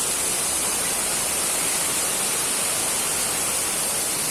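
Waterfall rushing: a steady, unbroken roar of falling water, strong in the high hiss.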